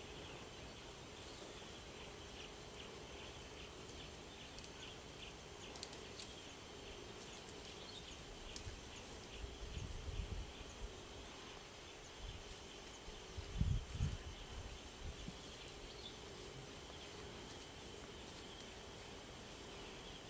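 Quiet bush ambience: a steady faint high chirping of insects and birds, with two short low rumbles about ten and fourteen seconds in, the second the louder.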